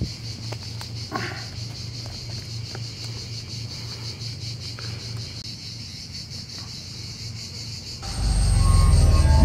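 Steady, finely pulsing drone of insects, with a low pulsing hum underneath. About eight seconds in a loud deep rumble swells in.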